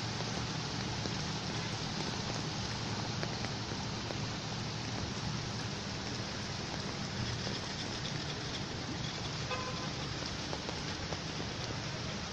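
Heavy hurricane rain pouring down steadily, an even hiss with no breaks.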